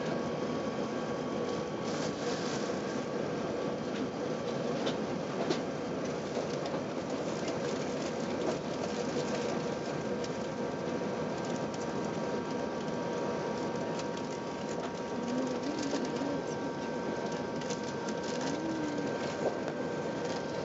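Steady cabin noise inside an Airbus A380 in flight, a dense rush of engine and airflow noise with a faint steady whine and occasional light rattles.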